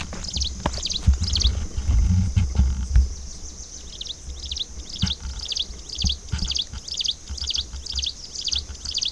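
A bird calling over and over in short high chirps, about two a second, pausing briefly early on, over a steady high insect-like hiss. A low rumble, like wind or handling on the microphone, is loudest in the first few seconds.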